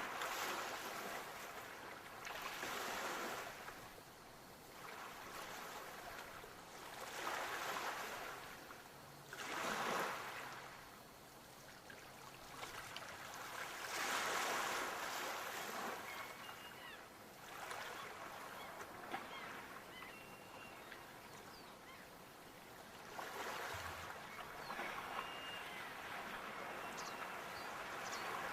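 Sea waves breaking and washing up the shore, a fresh wash swelling and falling back every few seconds. A few faint short high calls come through in the second half.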